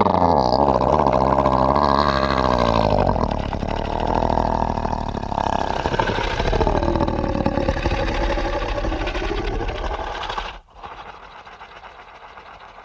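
Monster sound effect: a long, deep, growling roar with a wavering pitch that turns rougher as it goes, then cuts off sharply about ten and a half seconds in, leaving only a quieter rumble.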